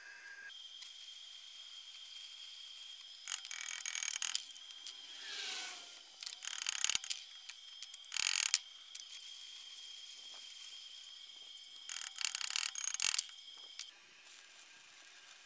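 Chipping hammer knocking slag off a fresh stick weld on a steel pipe leg and foot. It comes as four bursts of rapid metallic tapping and scraping, with a faint steady high whine underneath.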